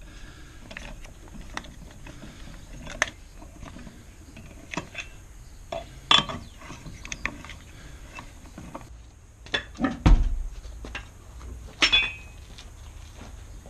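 Hand tools and metal car parts clinking and knocking in scattered strikes, with a heavy low thump about ten seconds in and a sharp metallic clatter near the end.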